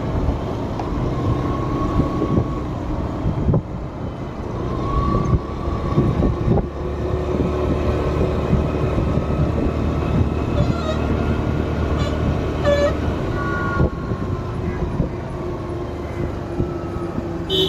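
A motor vehicle driving along a highway: steady engine and road rumble, with a few short horn toots.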